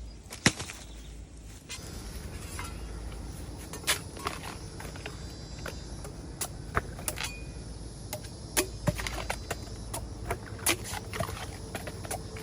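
Bamboo shoots being cut and broken: irregular sharp cracks and snaps, the loudest about half a second in, over a steady low background hum.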